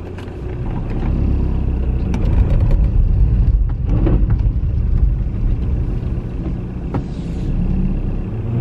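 Car engine running, a low rumble heard from inside the car's cabin that grows louder about a second in, with a few light clicks and knocks.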